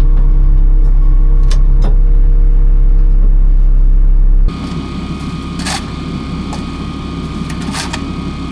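Heavy equipment engine running loud and steady with a deep drone. About halfway through it cuts off abruptly to a quieter, steady machine sound with a high whine and a few sharp clicks.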